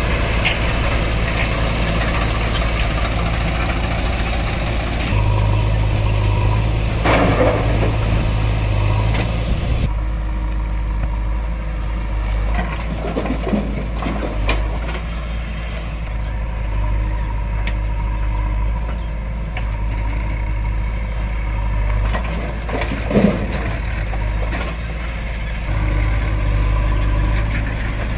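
JCB 3DX backhoe loader's diesel engine running steadily as it digs soil and tips it into a tractor trolley. A few brief rushes of falling soil and clatter rise over the engine.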